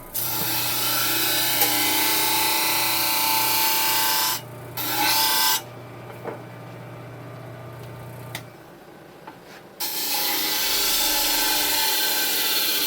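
Power sander with a sanding disc grinding on wood: a steady motor hum under a loud gritty rasp of abrasive on wood. The rasp drops away briefly just after four seconds in and again for about four seconds in the middle, leaving the quieter sound of the tool running, then comes back near the end.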